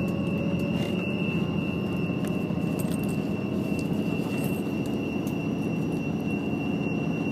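Train running noise heard from inside the passenger car of a Tango Explorer diesel railcar: a steady rumble with a thin, steady high whine over it.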